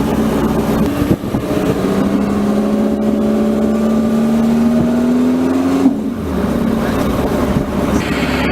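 A sports car's engine accelerating hard, its pitch climbing steadily through the gears. It shifts up about a second in and again about six seconds in.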